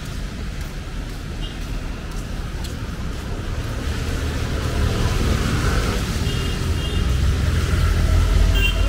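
City road traffic: vehicle engines rumbling, growing louder in the second half as a vehicle draws near, with a few short high-pitched beeps over it.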